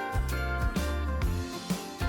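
Background music with a bass line and a regular beat.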